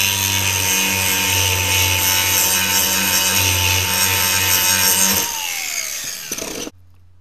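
Cordless angle grinder grinding steel, its motor whining at a steady pitch while the disc bites. About five seconds in the grinding stops and the motor winds down, falling in pitch, then cuts off shortly before the end.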